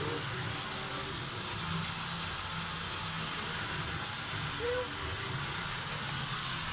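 Steady hissing background noise over a low rumble, with one faint short high call about two-thirds of the way through.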